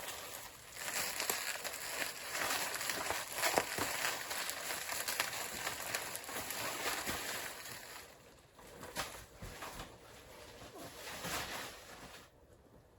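Rustling, crinkling and light knocks of cardboard and plastic packaging being handled, in irregular bursts that stop abruptly about a second before the end.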